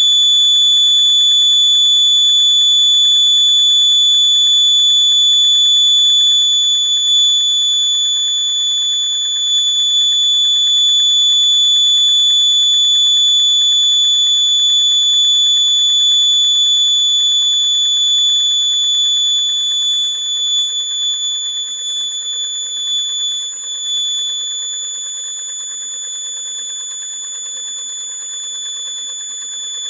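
Buzzer sounding one continuous high-pitched tone without any change in pitch. It grows weaker and unsteady about two-thirds of the way through.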